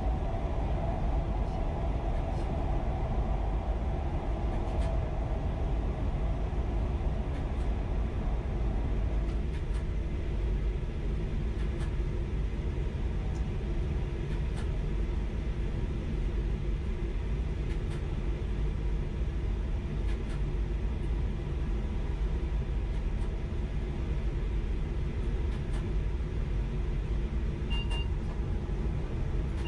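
High-speed train running at speed: a steady low rumble. A hum in the middle range fades out about nine seconds in, as the train comes out of a tunnel onto open track.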